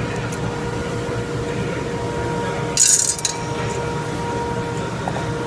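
A short metallic scrape and clink about three seconds in as the differential cover is pulled off the axle housing, over a steady background hum.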